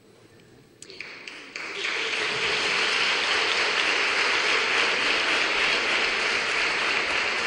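Audience applauding: a few scattered claps about a second in, filling out within a second into steady applause from a large crowd.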